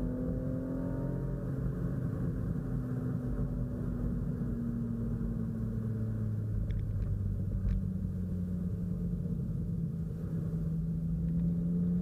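BMW E36 328i's straight-six engine heard from inside the cabin while driving. The revs ease down over the first half, hold, then climb again near the end.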